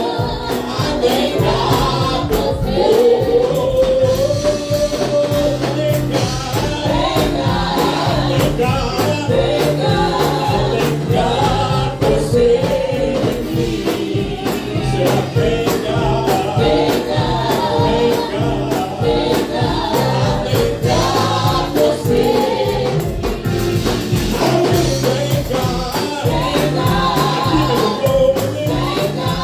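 Live gospel worship music: a choir and congregation singing over a band with a steady percussion beat.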